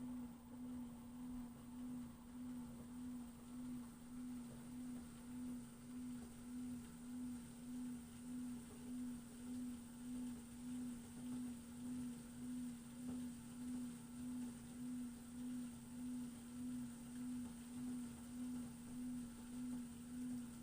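Drying fan of an LG FWY606WWLN1 washer-dryer running with a steady whine that swells and fades evenly a little more than once a second. The owner is unsure whether this whine is normal or a fault.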